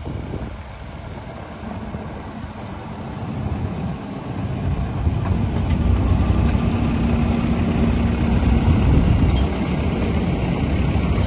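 Engine of a 10¼-inch gauge diesel-outline miniature railway locomotive running as it hauls its train towards the listener and passes close by, growing louder about halfway through with a steady hum.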